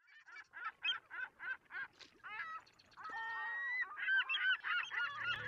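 Birds calling: a run of about eight sharp calls, roughly four a second, then several birds calling over one another. Music comes in near the end.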